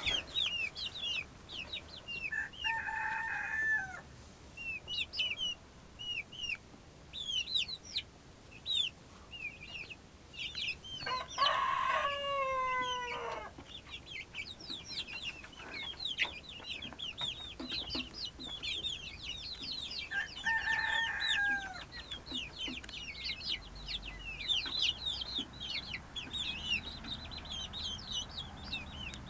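A mixed brood of young chickens (dwarf Cochin, millefleur, silkie, Brahma and Italian) peeping constantly in short, high, falling notes. Three longer, lower calls come through, near the start, around the middle and about two-thirds in, like a young cockerel's first attempts at crowing; the middle one is the longest and drops in pitch at the end.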